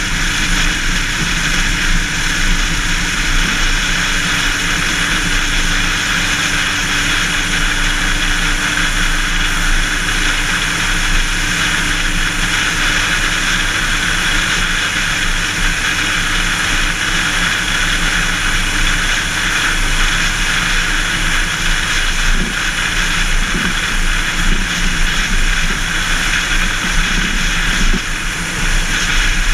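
Car travelling at highway speed: a steady rush of wind and tyre noise on the road, with a low drone underneath.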